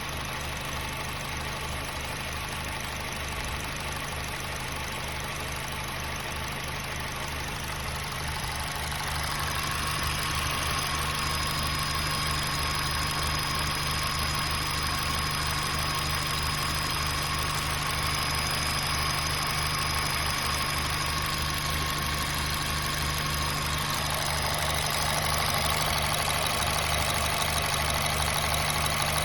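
A 2007 Honda Fit's 1.5-litre four-cylinder engine idling with a steady, even valvetrain sound, its intake and exhaust valve clearances just adjusted back into spec after all were found out of spec. It gets a little louder about nine seconds in, with a thin steady whine added.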